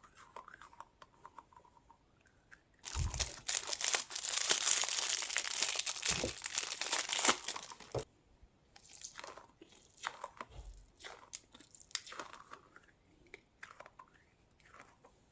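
Plastic wrapping crinkling and tearing as a fidget toy is handled, loudest in a long dense stretch of about five seconds beginning a few seconds in, then softer scattered rustles and clicks.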